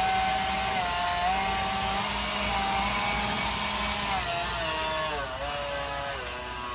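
A power tool or small engine running with a loud, steady whine whose pitch dips and rises several times.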